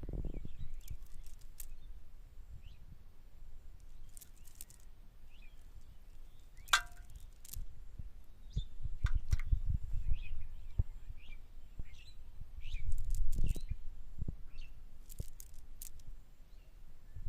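Small birds chirping now and then over outdoor ambience, with a sharp click about 7 seconds in and swells of low rumble at times.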